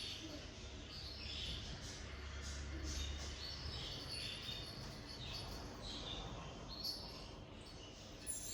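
Small birds chirping, many short high calls one after another, over a faint low hum.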